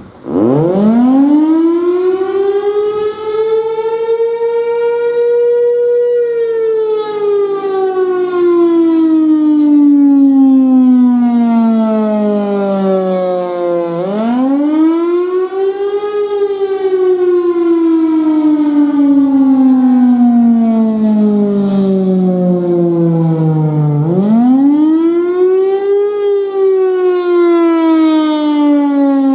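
Federal Signal Thunderbolt 1000 outdoor warning siren sounding the attack signal. It winds up from a standstill to full pitch over about six seconds, then wails, sliding slowly down in pitch and climbing quickly back up about every ten seconds.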